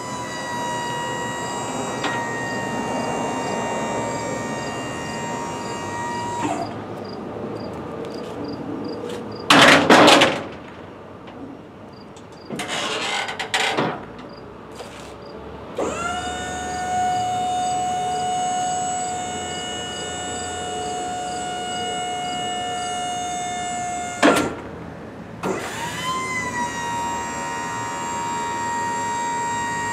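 MAXON TE-33 Tuk-A-Way truck liftgate in operation: its electric hydraulic pump motor runs with a steady whine in three long spells, the middle one lower in pitch, as the platform is lowered and unfolded, raised to bed height, and lowered again. Loud metal clanks from the folding platform come about ten and thirteen seconds in, and another near the end of the lift.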